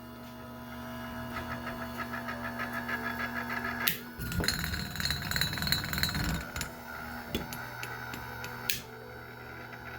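Small 12-volt DC car-seat motor, switched through a pair of reversing relays, running for a couple of seconds about four seconds in, over a steady electrical hum. Background music plays throughout.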